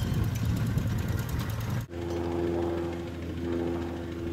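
Scale-model Case steam traction engine running, with rapid, even exhaust beats. About two seconds in the sound cuts abruptly to a steady droning hum with a light hiss.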